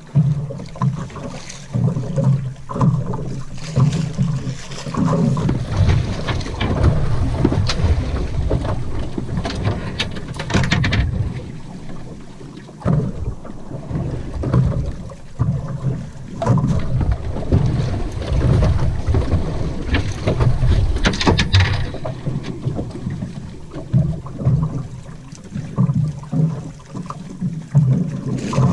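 Gusting wind buffeting the microphone on a small boat at sea, with water washing against the hull and a few sharp knocks and rattles about ten, sixteen and twenty-one seconds in.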